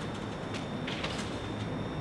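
A few faint clicks and taps from hand work on a wall installation, over a steady low hum, in a pause between runs of a power drill.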